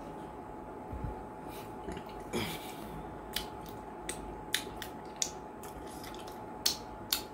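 Mouth sounds of eating by hand: a short slurp about two and a half seconds in, then a string of sharp, irregular wet clicks and smacks as fingers coated in slimy okra soup are licked and sucked clean.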